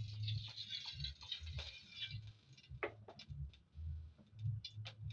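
Cooking oil being poured into a cooking pot: a soft, even hiss for about two seconds, then a few light clicks and taps.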